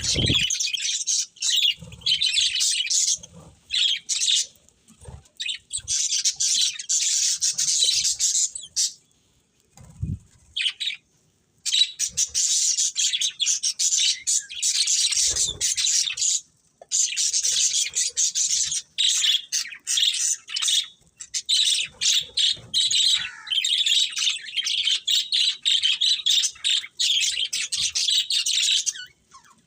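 Budgerigars chattering and warbling in long runs of rapid high chirps, broken by short pauses, with a few brief low thumps.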